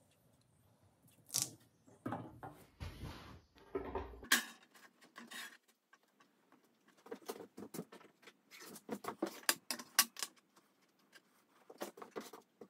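Hands handling thin metal cut-out pieces on paper and a board: scattered light clicks and taps, with a short stretch of rustling about three seconds in and a dense run of small taps in the second half.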